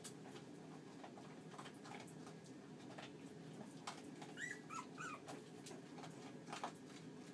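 Jackahuahua (Jack Russell–Chihuahua cross) puppies playing: a few short, high squeaks a little past halfway, amid faint scuffling and rustling on the bedding, over a steady low background hum.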